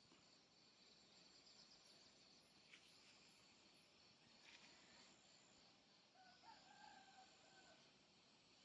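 Near silence: faint morning countryside with a steady high insect drone, and a distant rooster crowing once about six seconds in.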